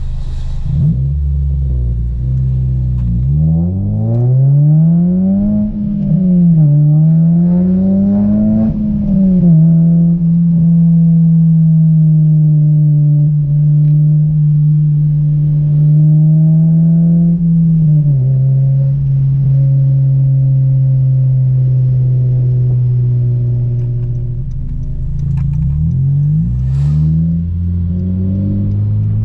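A 9th-generation Honda Civic's four-cylinder engine through an Invidia cat-back exhaust and aftermarket downpipe, heard from inside the cabin while driving. The engine note climbs under acceleration and drops at gear changes about 6 and 9 seconds in, runs steadily at cruise, drops again about 18 seconds in, and starts climbing again near the end.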